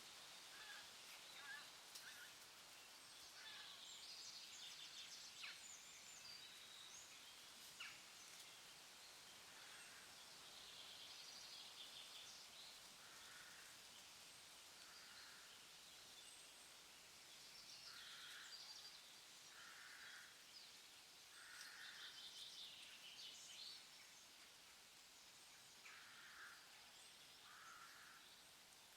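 Faint forest ambience of several birds calling: short calls repeat every one to two seconds, mostly in the second half, with higher trilling phrases scattered among them over a steady hiss.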